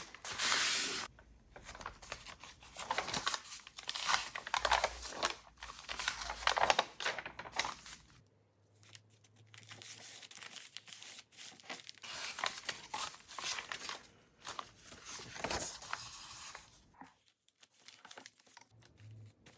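Paper being handled and torn: irregular bursts of rustling, crinkling and tearing of paper sheets, with a quieter stretch about halfway and a near-silent pause near the end.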